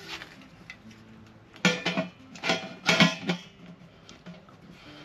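Stainless steel pressure-cooker lid set onto the pot and turned into place: a run of about five metal clanks with short ringing against the rim, clustered in the middle.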